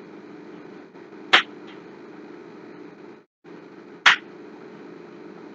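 Two sharp computer mouse clicks, about three seconds apart, over a steady microphone hiss and hum.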